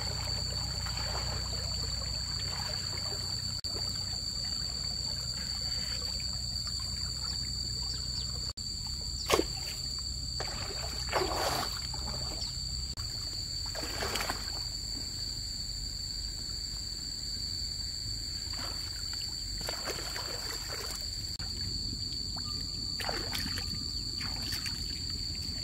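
Water trickling, with short splashes every few seconds in the second half.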